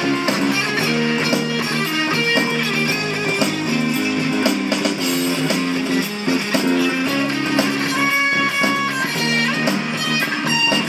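Instrumental passage of a hard-pop song: an acoustic-electric guitar strummed through an amplifier over an MP3 backing track, with no vocals.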